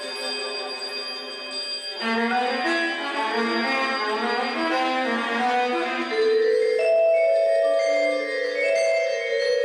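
Contemporary chamber music for two percussionists and viola. Ringing held tones give way about two seconds in to a run of quick mallet-percussion notes, and longer held notes take over about seven seconds in.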